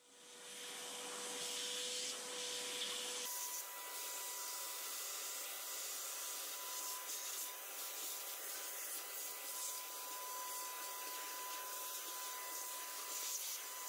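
Vacuum cleaner running as its hose nozzle sucks cast iron chips off a metal lathe's cross slide and bed. The sound is a steady rushing with a thin whine that steps up in pitch about three seconds in.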